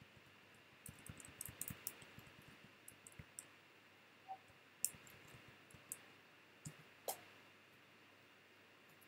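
Quiet clicks from working a computer: a quick run of taps and clicks about a second in, then single clicks every second or so, against faint room tone.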